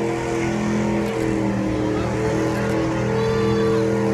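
Supercharged 5.4-litre V8 of a 2003 Ford SVT Lightning pickup, fitted with a Whipple supercharger, held at high revs during a tyre-smoking burnout. The engine note is steady, with its pitch wavering between about one and three seconds in.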